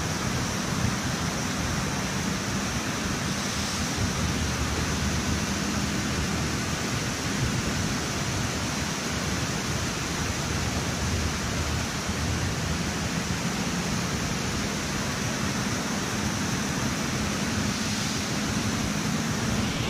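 Steady rushing of fast-flowing river water released from a hydroelectric dam's turbines.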